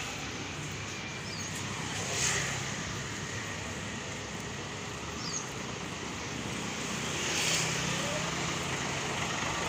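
Parked tour bus engine idling with a steady low hum, with two short hisses, one about two seconds in and a longer one near the end.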